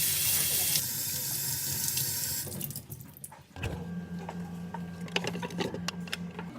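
Water running hard, as from a tap, easing after about a second and stopping about two and a half seconds in. Scattered small clicks and knocks follow over a steady low hum.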